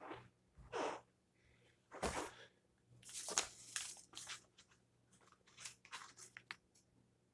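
Paper flyer rustling and crinkling in short bursts as it is picked up, shaken open and unfolded, over a faint steady hum.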